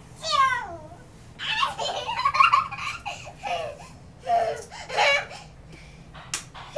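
A young child laughing in repeated high-pitched bursts, starting with a laugh that slides down in pitch, with a short sharp click near the end.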